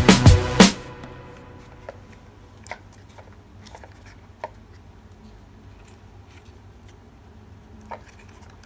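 Background music with a sharp beat cuts off under a second in. After that come faint, scattered taps and rustles of cardboard being handled, as cardboard panels are fitted onto a cardboard toy-truck chassis.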